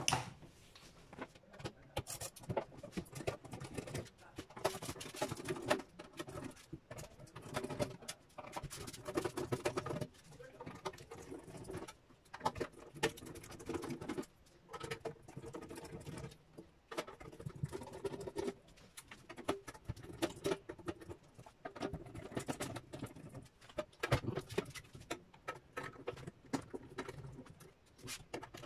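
Case screws of a 24 V inverter being worked out with a hand screwdriver: quick, irregular clicking and scraping in short runs with brief pauses.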